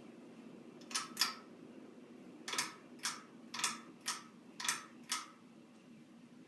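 Ceiling fan pull-chain switch clicking: four pulls, each giving a pair of sharp clicks about a third of a second apart, over the faint steady hum of the Hunter Augusta III fan.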